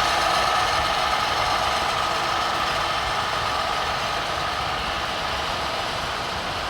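Radio-controlled model construction machine running steadily, a mechanical whine that slowly fades.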